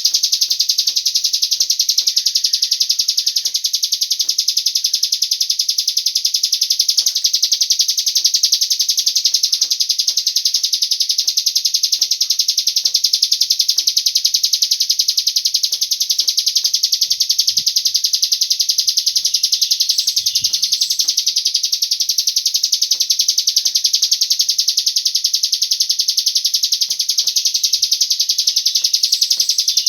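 Cigun bird song played as a lure recording to set other birds singing: a continuous, very rapid high trill with no break.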